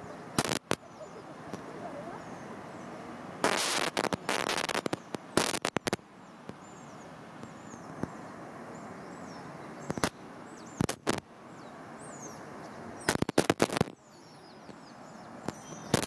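Steady wash of flowing water, broken by sharp clicks and short crackling bursts of rapid clicks, with faint high chirps over the top.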